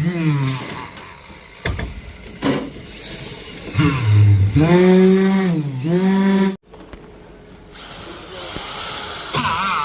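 A power tool motor running with a steady pitched hum. Its pitch sags and recovers as if under load, and the sound breaks off suddenly partway through before returning more quietly.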